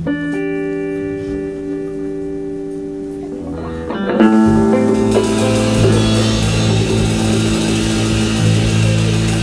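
Live rock band: an electric guitar chord rings out, held for about four seconds. Then the whole band comes in louder on a held chord, with bass guitar and cymbals ringing.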